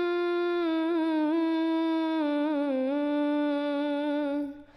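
A single unaccompanied voice singing an Arabic verse, drawing out one long note that wavers and bends slowly in pitch, then fading out just before the end.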